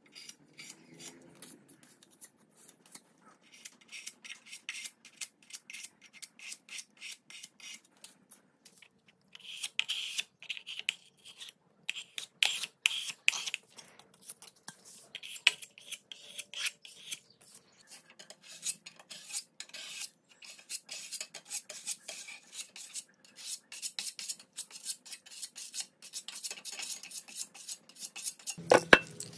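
Metal paint scraper scraping old paint and filler off sheet-metal machine panels in short, rapid, repeated strokes, with a louder knock near the end.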